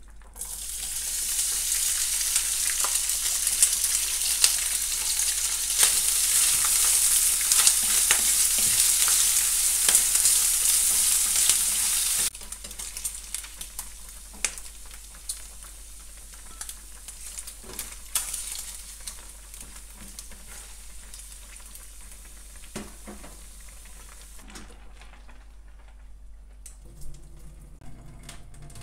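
Diced bacon sizzling in a hot oiled nonstick frying pan. The loud sizzle starts as the bacon hits the pan and stops abruptly about twelve seconds in. A much quieter sizzle follows, with scattered clicks of a spatula against the pan.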